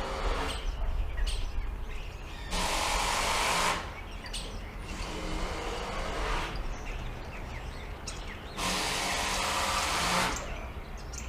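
Cordless impact drivers run in bursts at a distance, with two steady runs of about a second each, the first a few seconds in and the second near the end, and fainter shorter bursts between them. Birds chirp in the background.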